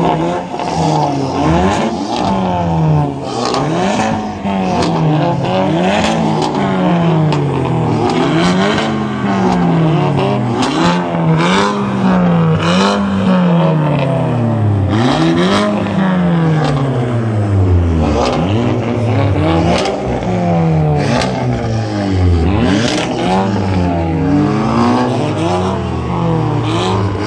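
Volkswagen Golf R hatchbacks (Mk7 and Mk6) fitted with Armytrix valvetronic exhausts, their turbocharged 2.0-litre four-cylinder engines revved again and again while standing still. Each rev rises and falls within a second or two, often overlapping with another car's, with sharp exhaust pops in between.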